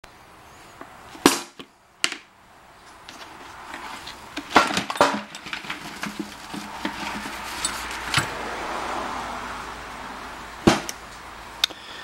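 Old seat belt retractor assemblies and small metal parts being handled on a carpeted workbench: about six sharp knocks and clinks, with a soft rustle between them.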